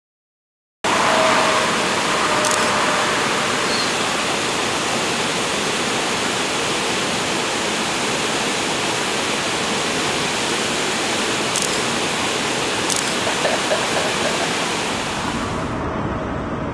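Steady rushing of river water, an even hiss-like roar that starts abruptly about a second in and drops away near the end, with a few faint clicks.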